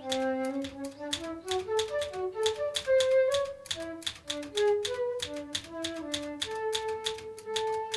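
Manual typewriter keys clattering in quick, uneven strokes while a woodwind plays a slow stepwise melody of single notes, settling on one long held note about six and a half seconds in.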